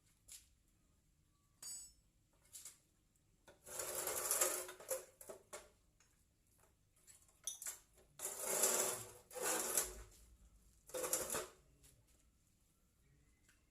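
Metal parts and tools being handled while a cut-off saw is taken apart: scattered clicks and clinks, with a few longer bursts of scraping and rattling about a third of the way in and again in the second half.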